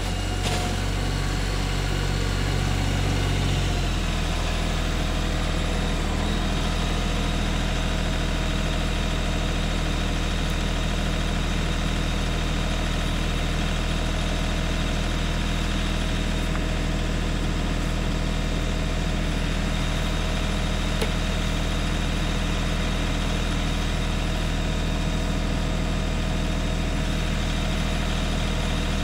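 Compact tractor with a front-end loader running; about four seconds in its engine slows from a higher speed to a steady idle.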